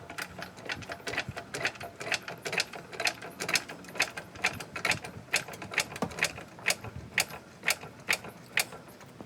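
Car jack being pumped by its handle to raise the car, with a sharp mechanical click at each stroke, about two a second, stopping near the end.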